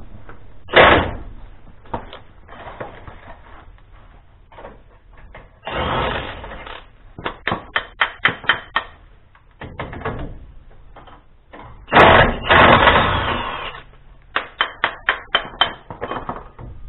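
Cordless impact wrench hammering on the bumper and tow-hook bolts in several bursts of a second or so, with runs of quick sharp clicks in between.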